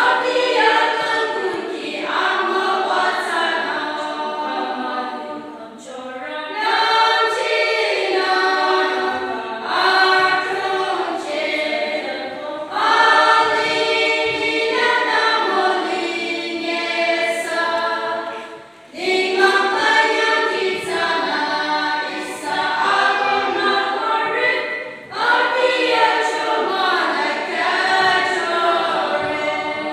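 Women's choir singing unaccompanied, in sung phrases of about six seconds separated by short breaks for breath.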